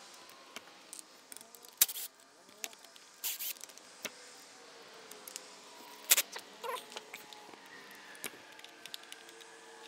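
Scattered light clicks and taps of hand tools on a Skilsaw circular saw's handle as it is taken apart to reach the switch.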